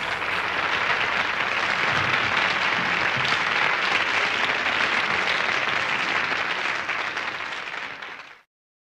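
Audience applauding, steady, then fading out and stopping near the end.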